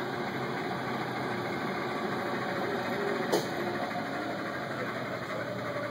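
Hardinge HC lathe running steadily, with a sharp click about three and a half seconds in and another at the very end.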